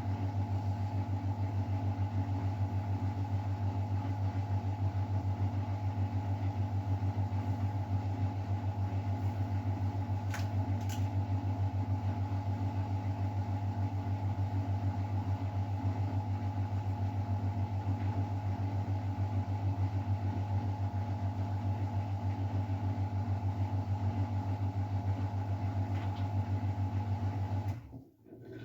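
Miele Novotronic W912 washing machine running with a steady low hum that does not change in pitch, with two faint clicks partway through. The hum cuts off abruptly about a second before the end.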